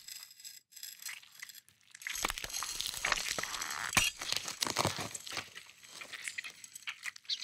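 Layered horror Foley of a knife stab into a body: wet crunching and tearing squelches that start about two seconds in, with a sharp hit about four seconds in, then thin out.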